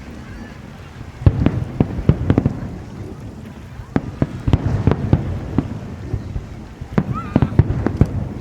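Aerial fireworks going off one after another: sharp bangs and cracks at irregular intervals over a low rolling rumble, with a short rising whistle about seven seconds in.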